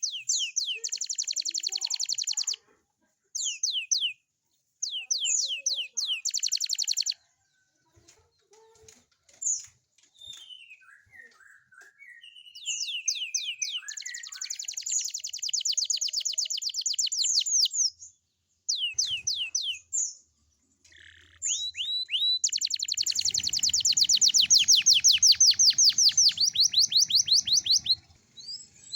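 Young domestic canary singing in bursts of fast, high trills broken by short pauses, ending in one long trill of about five seconds.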